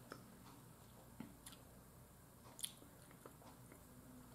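Faint mouth sounds of a person chewing food: scattered soft wet clicks and smacks, the clearest about two and a half seconds in, over a low room hum.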